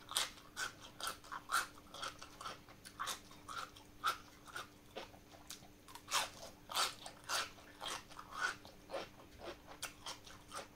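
Crisp quick-pickled cabbage being bitten and chewed close to the microphone, a run of irregular crunches. The crunch is the sign that the cabbage stayed raw and firm in the brine rather than going soft.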